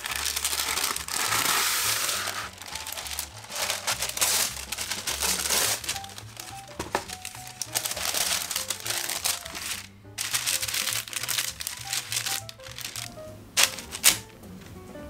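Sheets of baking paper crinkling and rustling in several long stretches as they are handled and spread over a metal baking tray, with two sharp taps near the end as slices of bread are set down on the paper. Soft background music plays under it.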